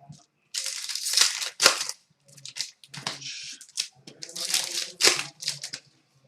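Trading cards being handled: cards sliding and scraping against one another, with crinkling of plastic, in several short sweeps of rustling.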